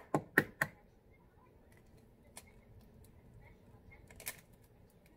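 An egg knocked sharply three times to crack its shell, then, about four seconds in, a brief crackle as the shell is pulled apart over a mixing bowl.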